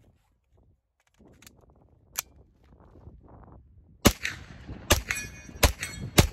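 Two sharp clicks, then four semi-automatic 9mm shots from a B&T GHM9 pistol-calibre carbine in quick succession, starting about four seconds in.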